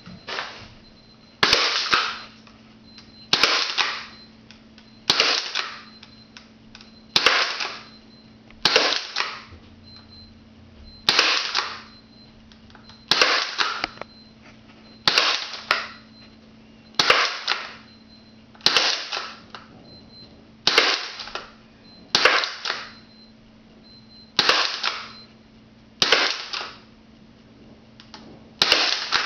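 Spring-powered Crosman Remington Wingmaster airsoft pump shotgun fired over and over, about one shot every two seconds. Each shot is a sharp snap with a short ringing tail, and a faint click falls between shots.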